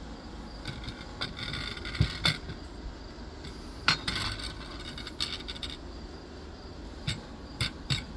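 Handling noise: a few sharp knocks and short scraping rustles come at irregular moments over a steady low background hum.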